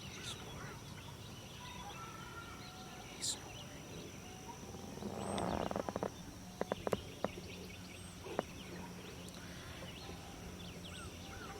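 Quiet outdoor ambience: a steady high-pitched hum with scattered faint bird chirps. A brief rustling swell comes about five seconds in, followed by a few sharp clicks.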